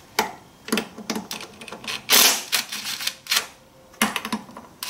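Ratchet wrench clicking in short, irregular bursts as throttle body bolts are backed out, with a longer run of clicks about two seconds in.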